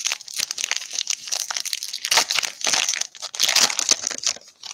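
Trading card pack wrapper crinkling loudly as it is torn open and handled, in irregular bursts that stop near the end.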